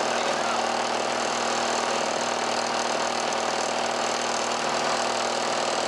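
A 1977 Lawn-Boy mower's two-stroke engine running steadily at an even speed on a 32-to-1 fuel mix, freshly rebuilt and running well.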